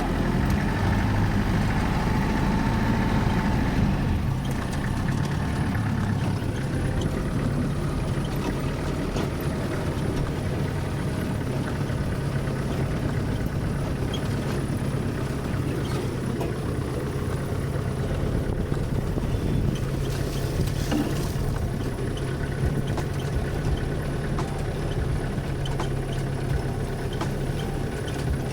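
Motor vehicle engine running steadily with a low hum, along with road and wind noise.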